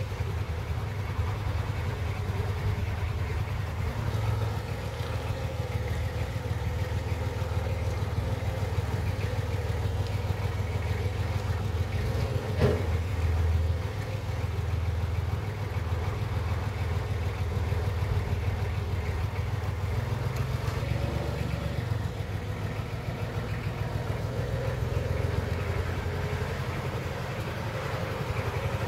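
Forklift truck's engine running as it drives and lifts a load, its note shifting a few times, with one sharp knock a little under halfway through.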